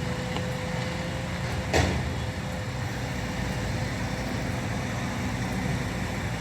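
Heavy vehicle engines running with a steady low rumble, and a short loud hiss-like burst just under two seconds in.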